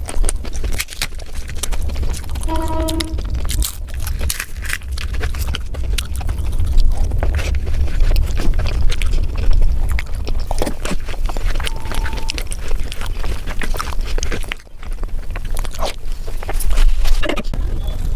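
Close-miked eating sounds: chewing and wet mouth sounds with many small clicks, over a steady low rumble.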